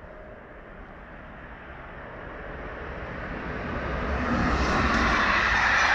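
SNCF BB 22200-class electric locomotive and its Corail coaches approaching and passing at speed. The rushing rumble of the train grows steadily louder from about two seconds in.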